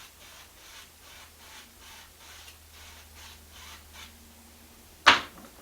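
A paintbrush stroked back and forth across a painting, about two and a half soft brushing strokes a second, stopping about four seconds in. About a second later there is one short, sharp, loud noise.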